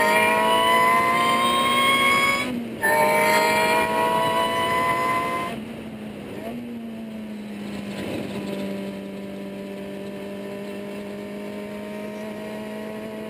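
Ariel Atom's engine heard onboard at full throttle, its pitch rising through the revs, with a quick upshift about two and a half seconds in before it climbs again. Just over five seconds in the driver lifts off and the engine drops to a quieter, steady tone with wind noise for the rest.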